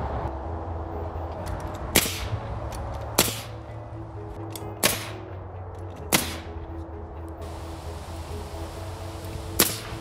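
Pneumatic nail gun firing nails into door trim boards: five sharp shots at uneven spacing, one to three seconds apart, over a steady low hum.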